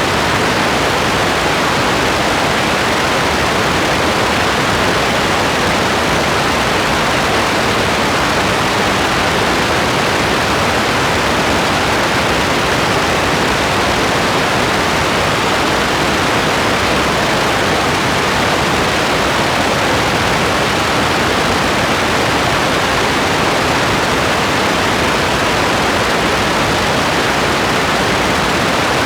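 Steady heavy rain: a dense, even hiss with no single drops or changes standing out.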